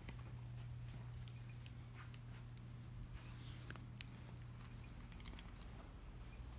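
Quiet room with a steady low hum and a few faint, scattered clicks.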